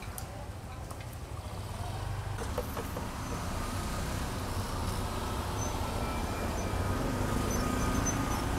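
Steady low rumble of road traffic, growing slightly louder, with a few light clicks of skewers and utensils against the metal pan near the start and at about two and a half seconds.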